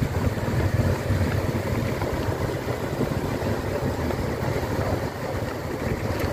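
Several motorcycle engines running at low speed close by: a steady low rumble from the pack of bikes.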